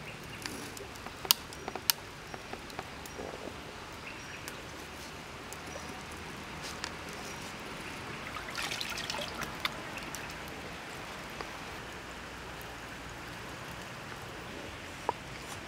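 Steady trickling of a stream, with a few sharp clicks and a short spell of crackling about eight and a half seconds in.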